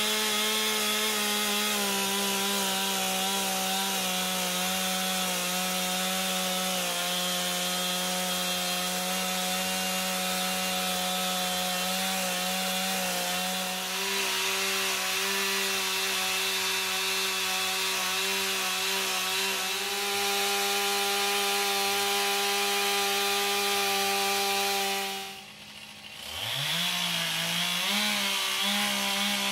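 Stihl MS 291 two-stroke chainsaw with a ripping chain, held at full throttle and cutting lengthwise through a log in an edging mill, its engine note steady under load. About 25 seconds in the note drops away briefly, then revs back up.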